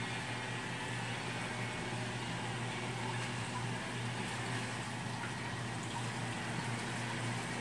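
An Eheim 1260 pump running with a steady low hum, and water rushing steadily as it circulates through the PVC plumbing of a saltwater mixing tank.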